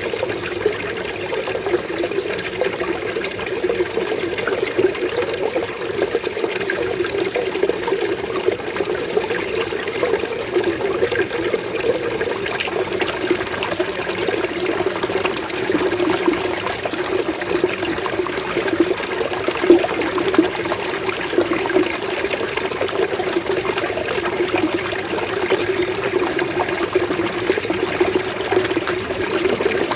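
Running water gurgling steadily in a low, bubbling 'kopo-kopo' flow, like a small stream or water spilling over stones.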